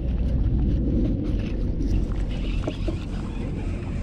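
Low rumble of wind and handling noise on the camera microphone while a hooked fish is reeled in from a kayak, with a few light clicks and taps.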